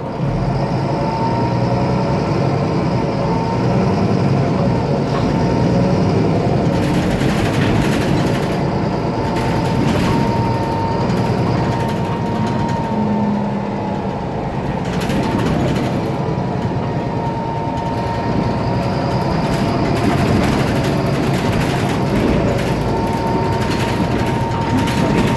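Mercedes-Benz Citaro O530 city bus's OM906LA turbo-diesel running under way, with a steady whistle that wavers slightly in pitch and a fainter, higher whine that comes and goes: the sound of a faulty turbocharger.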